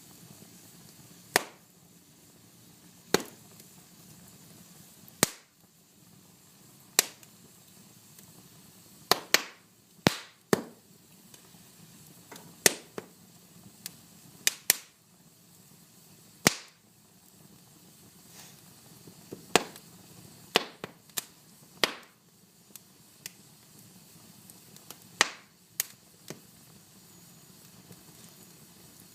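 Wood fire burning with a low steady hiss and irregular sharp crackles and pops, sometimes in quick clusters of two or three, with gaps of a second or more between them.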